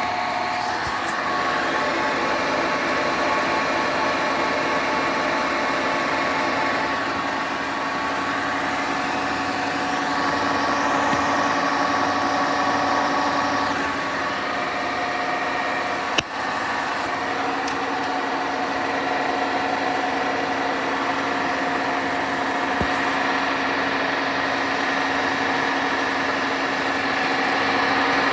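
Hotpoint washing machine running with a steady, horrendous grinding noise carrying a held whining tone, with one sharp click about halfway through.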